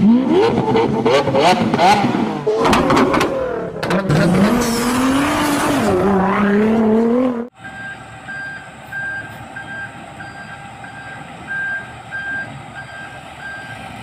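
Sports car engine revving, its pitch rising and falling, with sharp exhaust crackles. It cuts off suddenly about seven and a half seconds in, giving way to a reversing alarm beeping at an even pace over a steady engine hum.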